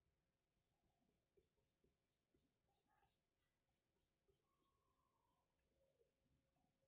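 Paintbrush scratching quickly back and forth over a plywood board as red paint is spread, a faint run of about three to four strokes a second starting about half a second in.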